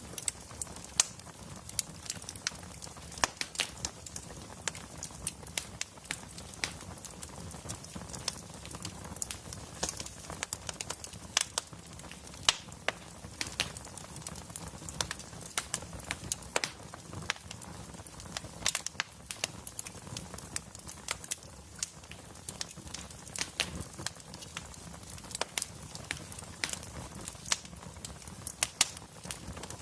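Wood fire burning in a fireplace, crackling with many irregular sharp pops and snaps over a steady low rumble of the flames.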